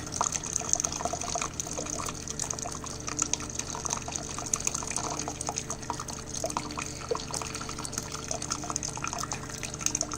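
Coffee maker brewing a cycle of clean rinse water after a vinegar descaling: hot water spitting and dripping into a measuring cup over a steady low hum from the machine.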